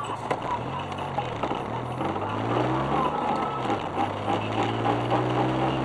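Suzuki Alto Works on the move, its engine note rising and falling twice as it speeds up and eases off, then climbing steadily.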